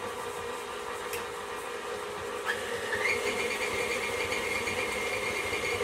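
Stand mixer motor running steadily as it creams softened butter and sugar. About halfway through there is a click, and a higher whine rises in and holds.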